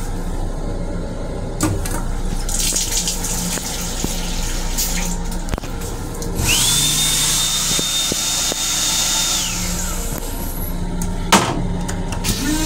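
LIRR M7 railcar toilet flushing: a hissing rush with a steady high whine starts about six seconds in, holds for about three seconds and then falls away. A steady train hum runs underneath, with a sharp click near the end.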